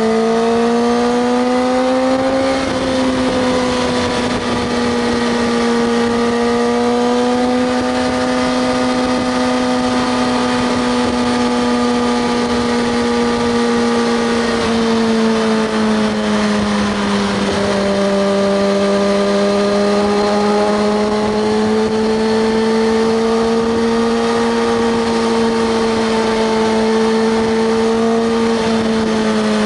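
Kawasaki ZX-6R 636 inline-four engine pulling at a steady cruise, its pitch drifting gently up and down with small throttle changes, over a steady rush of wind noise.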